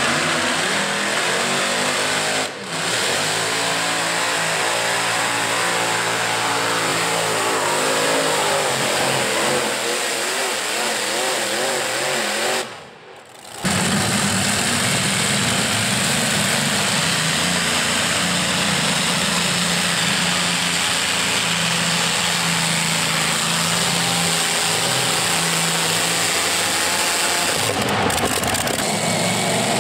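Multi-engine modified pulling tractor running hard under load, its engines revving and holding high revs, in several clips joined by cuts. The sound drops out for a moment about 13 seconds in.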